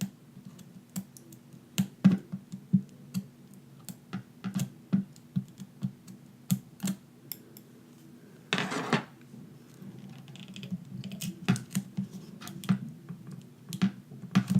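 Irregular light clicks and taps of small repair tools against an opened iPhone 6 as its battery is pried out from the bottom, with a short scraping rustle about halfway through.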